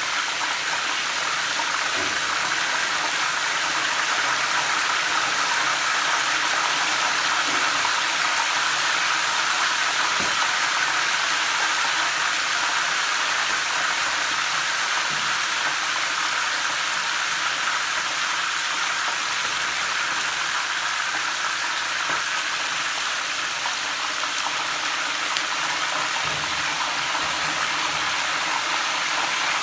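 Chicken drumsticks sizzling in hot oil in a frying pan, a steady hiss.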